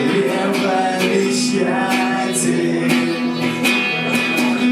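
Live song: a strummed guitar with a man singing a long held line, the word «чревовещатель» («ventriloquist»), about a second and a half in.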